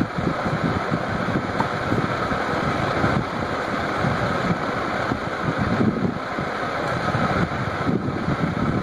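Steady background mechanical noise, a low rumble with a hiss over it and no distinct knocks or clicks.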